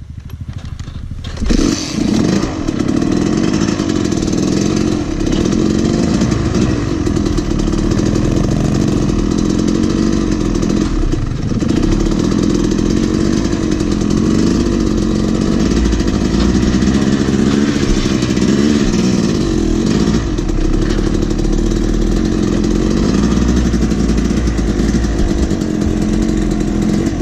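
Dirt bike engine running close to the microphone. It picks up sharply about a second and a half in as the bike pulls away, then holds at a fairly steady throttle with the pitch wavering a little as it is ridden.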